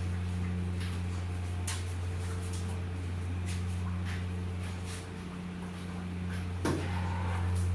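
Dough-cutting machine for fried dough sticks running with a steady electric motor hum, with scattered light clicks and knocks; the loudest knock comes near the end.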